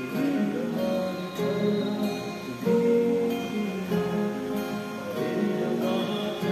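Two acoustic guitars playing together, strummed chords under a picked melody line, with a boy's voice singing softly over them.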